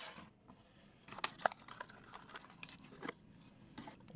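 Skincare product packaging being handled: a series of small clicks and taps with light crinkling, the two sharpest clicks coming about a second and a half in.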